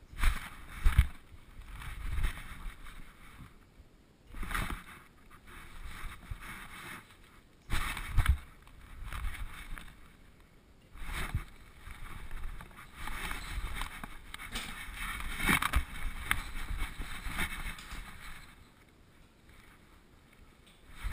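Handling noise of a GoPro camera strapped to a dog: irregular rustling and scraping as the dog moves and its fur and the mount rub against the camera housing. A few sharp knocks come through, the loudest about a second in.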